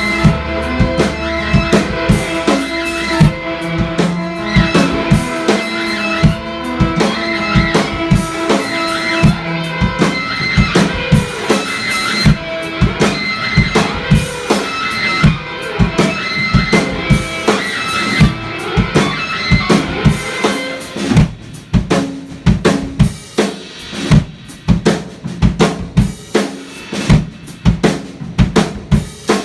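A band playing live: guitar over a drum kit, then about 21 seconds in the guitar drops out and the drums carry on alone with a steady kick and snare beat.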